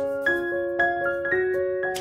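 Background music: a light piano tune of ringing notes, a few notes a second.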